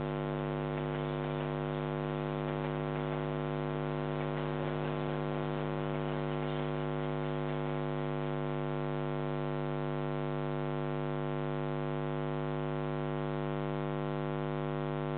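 Steady electrical mains hum: a constant buzz of evenly spaced tones from a security camera's audio line, with a faint hiss added in the first half.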